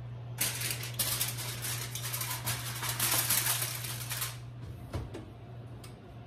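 Aluminium foil crinkling and crackling for about four seconds as it is pulled off a roasting pan in an oven, then a single light knock.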